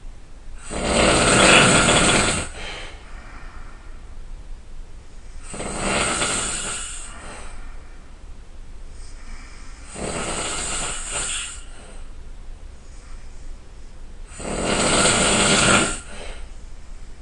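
A person snoring loudly: four long snores, each lasting a second and a half to two seconds, coming about every four and a half seconds with quieter breathing between them.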